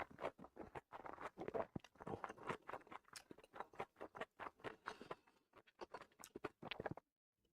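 Close-miked chewing of a mouthful of food: many short, irregular mouth sounds that stop abruptly about seven seconds in.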